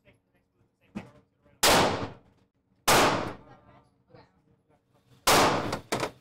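Four gunshots at an indoor shooting range, each sharp crack followed by a short echoing tail. The last two come close together, about half a second apart.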